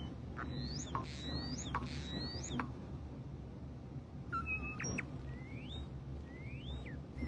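European starling mimicking R2-D2's droid beeps and whistles. First come three rising whistled sweeps with sharp clicks, then a few short beeps, then two quick rising-and-falling whistles.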